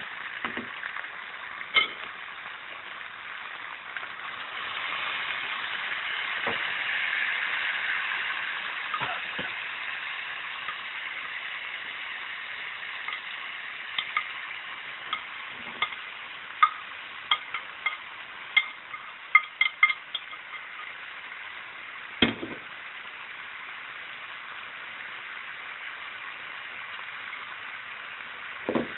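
Pork and vegetables sizzling in a hot wok while being stir-fried, the sizzle swelling for a few seconds after the start. A metal spatula scrapes and clinks against the pan, with a quick run of sharp clinks in the middle and a single knock later.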